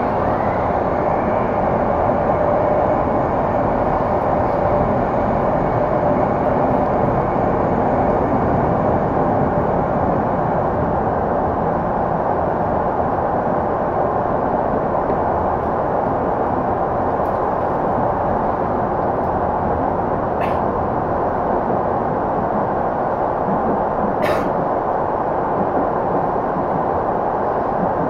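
Running noise inside a Tokyu 5050-series electric train car (set 5177F) between stations: a steady rumble of wheels on rail, with a faint whine from the traction equipment that rises in the first second and then holds for several seconds. Two short sharp clicks sound about 20 and 24 seconds in.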